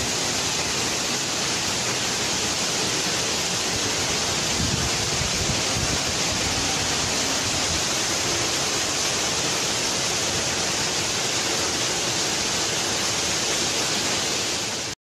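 Cyclone-force wind and heavy rain: a steady, unbroken rush of noise.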